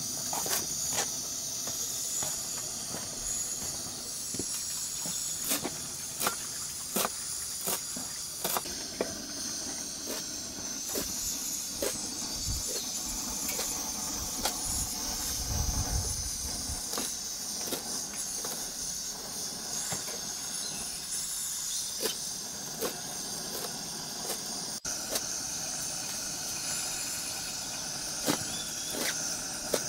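Kitchen knife chopping fresh herbs on a steel tray: quick, irregular sharp taps of the blade on the metal. Under them runs a steady hiss from the portable gas-canister burner heating the pot.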